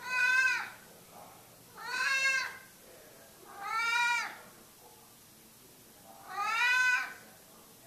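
Domestic cat meowing four times, about every two seconds, each meow under a second long.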